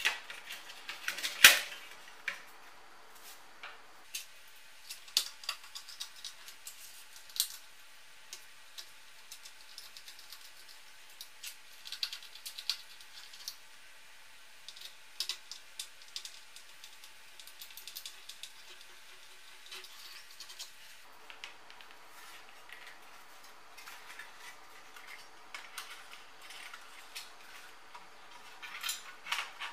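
Scattered clicks and light metallic knocks as a monitor's power supply board and sheet-metal chassis and shield are handled and fitted back together. The loudest knock comes about a second and a half in, and the clatter picks up again near the end.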